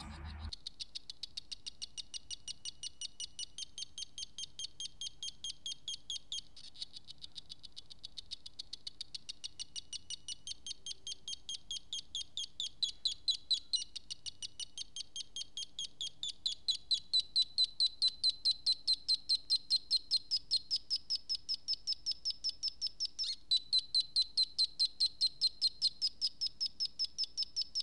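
Solar-powered solar sound module chirping through a piezo buzzer: a fast, even train of short high chirps whose pitch creeps upward in small steps, getting louder about halfway through.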